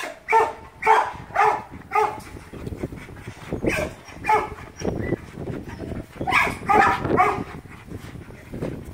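Two young dogs, a black Lab-pit mix and a tan cattle-dog-type mix, play-fighting with short yips and barks in quick runs, with scuffling between them.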